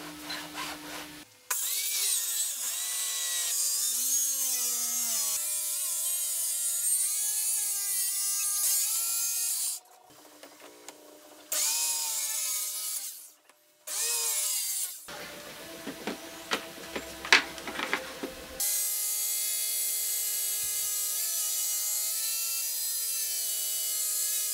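Electric circular saw running and cutting wooden boards, its motor whine sagging and recovering as the blade bites into the wood. The sound stops suddenly and starts again several times, with a rougher, rattling stretch and sharp clicks in the middle.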